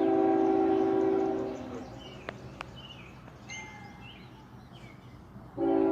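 A Nathan K5HL five-chime air horn (third generation) on a CSX GE ET44AH locomotive sounds a long blast that stops about a second and a half in. A new blast starts near the end. In the quieter gap between them, birds chirp.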